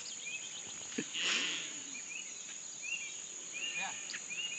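Steady high-pitched chorus of insects in a field at night, with short chirps repeating every second or so. A single knock sounds about a second in, followed by a brief rustle.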